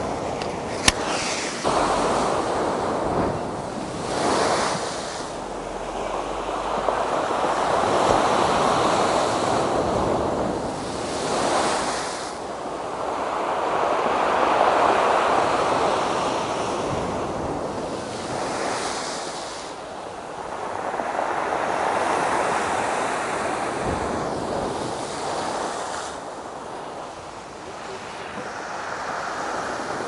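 Storm surf: big sea waves breaking and washing up the shore, the noise rising and falling in long surges about every seven seconds. There is a brief sharp click about a second in.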